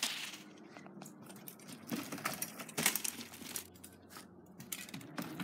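Faint, scattered rustling and crackling of dry leaf litter, with a few small clicks.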